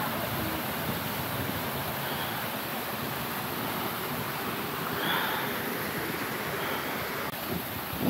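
Steady rushing of a rocky mountain stream and its small waterfalls, with a slight swell about five seconds in.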